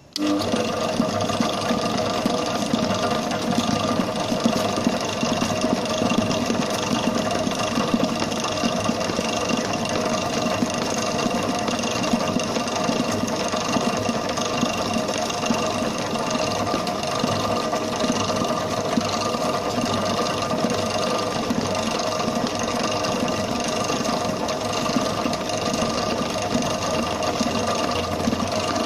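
Electric bakery stand mixer starting up abruptly and running steadily, its motor and gearing giving a constant hum of several steady tones as the flat beater churns butter cream icing in a steel bowl.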